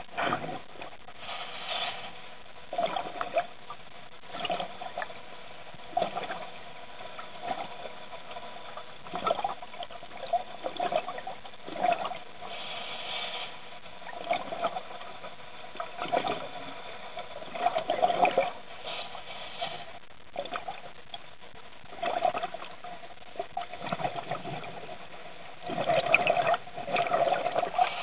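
Water sloshing and bubbling around a camera held underwater, in irregular surges every second or two, the loudest near the end.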